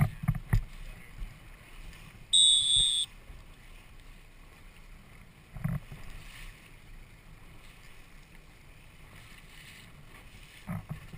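Wind and water noise from a small boat out on open water, a low steady rumble with a few dull thumps. About two seconds in, a single loud high-pitched tone sounds for under a second.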